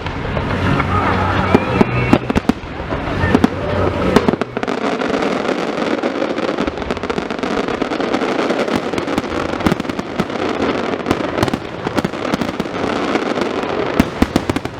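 Fireworks going off: many sharp cracks and pops in quick succession, coming thickest near the end, with a low rumble of bursts in the first few seconds. Crowd voices chatter underneath.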